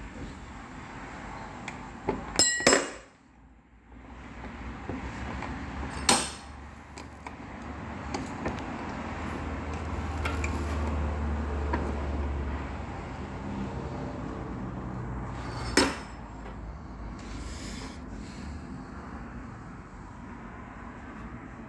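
Metal knocks and clinks from tools on a Mercedes-Benz car door lock being taken apart: three sharp strokes spread apart, the first and loudest ringing briefly. A low rumble swells and fades in the middle.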